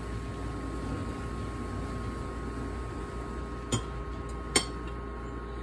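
Steady electrical or appliance hum with a few faint even tones, broken by two short sharp clicks about a second apart past the middle.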